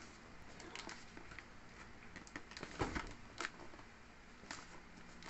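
Cardboard shipping box being turned over and handled: scattered light rustles, scrapes and taps, the loudest a knock about three seconds in.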